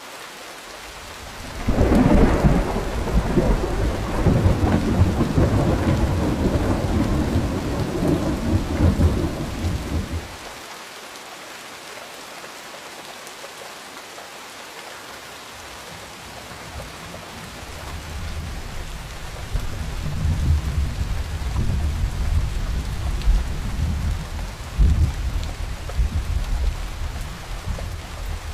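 Steady rain falling, with two long rolls of thunder: a loud rumble that starts about two seconds in and stops abruptly around ten seconds, then another that builds from about seventeen seconds and rolls on, with a few stronger swells, until near the end.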